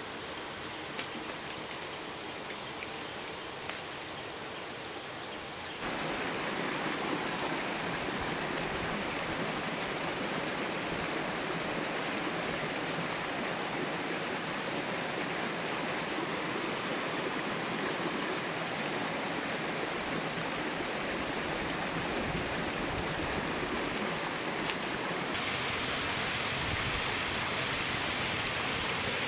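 Water of a stream flowing, a steady rushing that starts abruptly about six seconds in and grows a little brighter near the end. Before it there is a quieter outdoor hiss with a few faint clicks.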